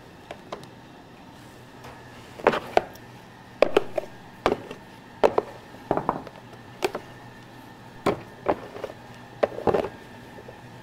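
A string of short sharp knocks and taps, about one a second, some in quick pairs, as risen bread dough is worked out of a plastic dough box on the bench for dividing.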